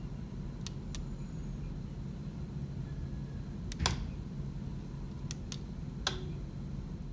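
Steady low room hum with a handful of short, sharp clicks, the loudest about four seconds in.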